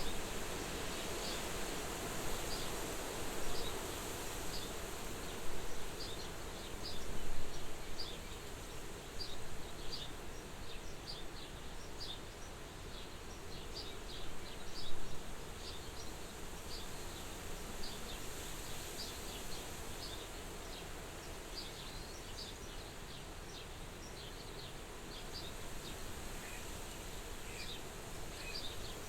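Soft wind blowing at a farmhouse window, rising in brief gusts now and then, with many short high chirps scattered through it.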